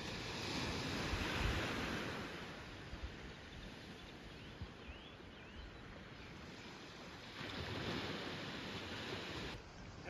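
Small waves breaking and washing up a sandy beach. The surf swells twice, about a second in and again near the end.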